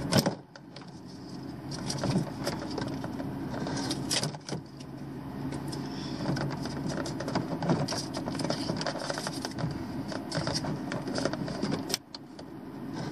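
Hands handling the stripped end of a 10-gauge electrical cable, working its wires apart: a run of irregular clicks, taps and rustles.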